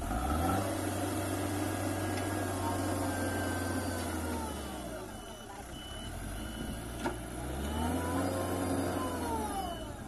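JCB 3DX backhoe loader's diesel engine revving up under hydraulic load as the digging arm works, easing off about halfway through, then revving up again and dropping near the end. From about halfway in, a reversing alarm beeps steadily from the tipper truck backing up to be loaded, and there is one sharp knock a little after the middle.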